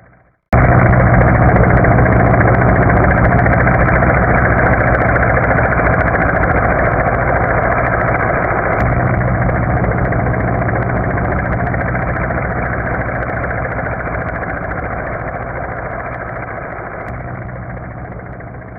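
Military helicopter's rotor and turbine noise, cutting in suddenly at full loudness about half a second in, then fading slowly and steadily as the helicopter flies away.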